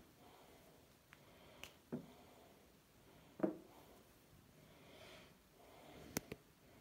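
Faint room tone broken by a few soft thumps and taps of playing kittens' paws on a carpet and cushions, the loudest about three and a half seconds in and two quick ones near the end.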